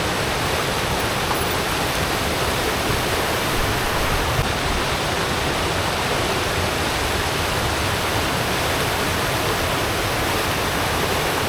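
Steady, loud rush of fast-flowing mountain water from a stream or waterfall.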